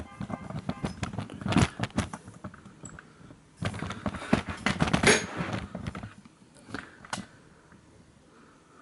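Metal hand tools clinking and clattering: two bursts of sharp clicks and knocks, then a single click a couple of seconds later.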